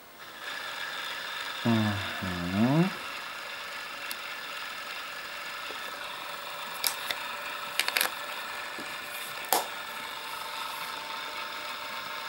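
VHS-C camcorder's tape mechanism running in VCR mode, a steady whir with a faint whine, likely the tape winding before playback. A few sharp clicks come in the middle, and there is a short hummed voice sound about two seconds in.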